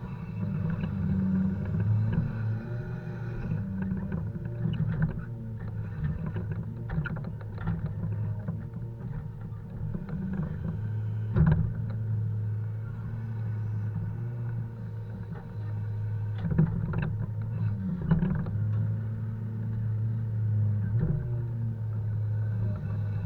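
Heavy diesel engine running steadily, its note swelling and easing, while poplar logs are unloaded, with knocks and thumps of logs striking one another. The sharpest knocks come about halfway through and again about three-quarters through.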